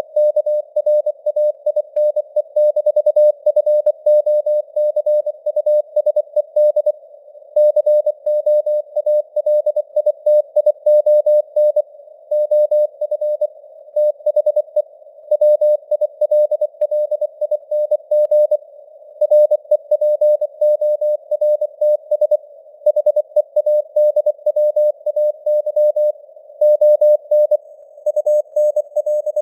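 Morse code (CW) sent at 24 words per minute: a single mid-pitched tone keyed on and off in quick dots and dashes, with longer gaps between words. It sits in a narrow band of simulated radio noise.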